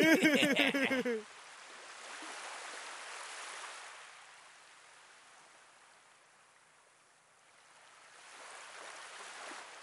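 Ocean surf washing onto a sandy beach: a soft hiss that swells, fades almost away, then swells again near the end. A voice speaks briefly at the very start.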